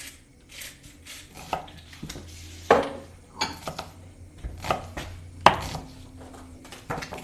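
Kitchen knife chopping food on a cutting board in irregular, uneven strokes, with a few harder knocks.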